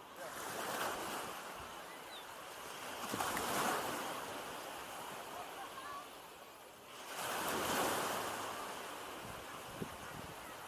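Small sea waves breaking and washing up the sand at the water's edge, swelling in a surge every three to four seconds. A short click near the end.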